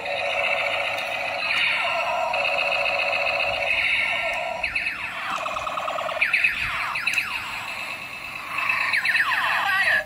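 Electronic sound effects from a battery-powered transforming tank-robot toy's small built-in speaker: tinny warbling tones, then from about five seconds in a run of siren-like sweeping glides.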